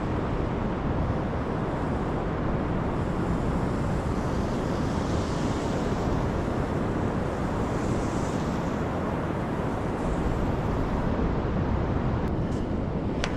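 Wind buffeting the microphone over the steady wash of surf on a beach, with a couple of swells of hissing wash along the way and a few sharp clicks near the end.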